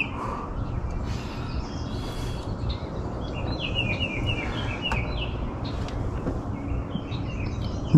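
Birds chirping in short repeated calls, with a quick run of chirps about halfway through, over a steady low rumble.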